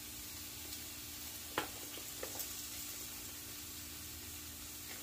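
Frozen broccoli florets and melting butter sizzling steadily on a hot Blackstone flat-top griddle, with a light click about a second and a half in.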